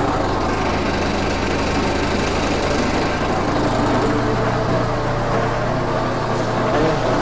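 Small petrol engine running steadily at working speed, driving a forage chopper's spinning blade rotor before any grass is fed in. The low hum grows a little stronger about halfway through.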